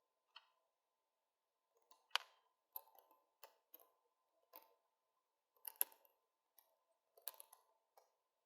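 Scattered light clicks and knocks at uneven intervals as a 3D-printed plastic stepper motor housing and its screws are handled and fitted, over a faint steady hum.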